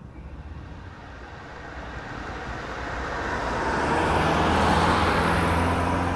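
A car driving past on the road: tyre and engine noise grow louder to the closest point about four to five seconds in, with a steady engine note, then begin to fade as it moves away.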